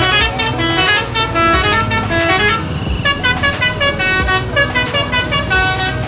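Bus telolet horn, a Basuri multi-tone air horn, playing a rapid tune of short chord-like notes, with a brief pause about halfway through.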